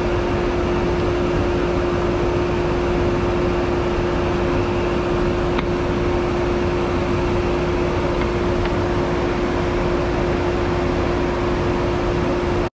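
Table-mounted woodworking router running at full speed with a steady high whine over a loud rush of air, spinning freely without cutting, its pitch unchanged.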